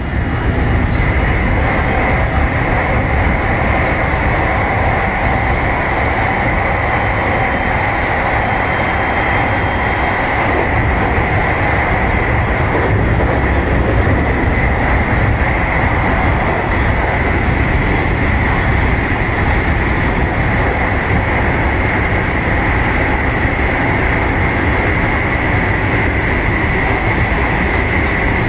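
223-series electric train running at speed through a tunnel, heard from behind the driver's cab: a loud, steady rumble of wheels on rail with a hiss around it. It grows louder right at the start as the train enters the tunnel, then holds steady.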